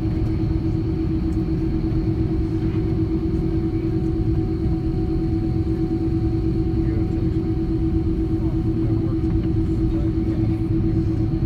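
Steady aircraft cabin noise inside an Airbus A330-300 on the ground after landing: an even low rumble with a constant hum.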